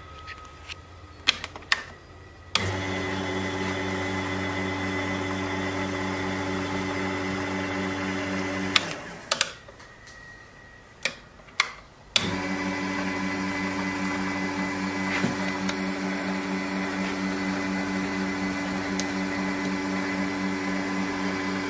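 Mini metal lathe's motor and spindle running with a steady hum, started about two and a half seconds in, stopped near the nine-second mark and started again about twelve seconds in. Sharp clicks from the switch and controls come before each start.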